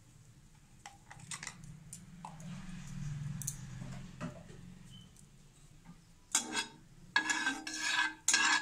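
A spatula scraping and knocking around a non-stick kadai as ghee melts in it. It starts about six seconds in and is the loudest sound; before that there are only a few faint clicks and a low hum.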